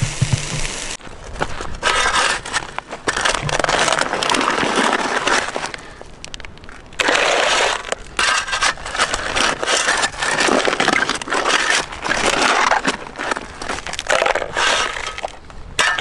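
A steel shovel blade digging into coarse river gravel and sand, crunching and scraping through stones in repeated strokes, starting about a second in.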